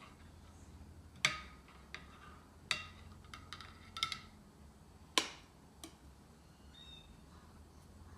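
Kitchen utensils clinking and knocking while food is cooked and plated: about four sharp clinks with a short metallic ring, plus a few lighter taps.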